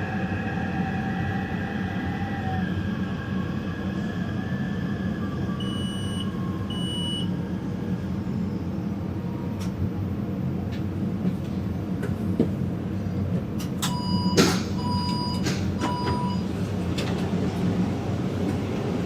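Taipei Metro Zhonghe–Xinlu line train running with a steady rumble, its motor whine falling in pitch over the first few seconds as it slows. Two short high beeps come about six seconds in, and a run of three beeps with sharp clicks follows near the end.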